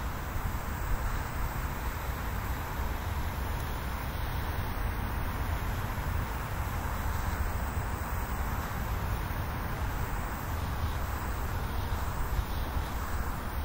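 Steady outdoor background noise with a low rumble and an even hiss, with no distinct events.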